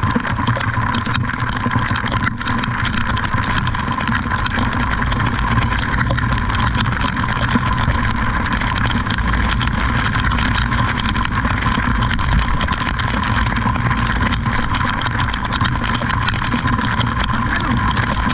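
Steady vehicle engine and road noise, unbroken and fairly loud.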